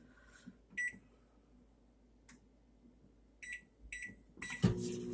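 Microwave oven being set going: short keypad beeps and a click, then the oven starts up near the end with a low running hum.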